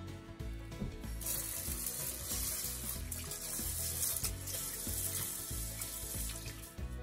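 Kitchen tap running into a rice cooker pot as rice is washed by hand in a stainless steel sink. The water starts about a second in and stops just before the end, with background music underneath.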